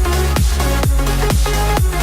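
Electronic dance music with a steady kick drum, about two beats a second, over bass and synth chords.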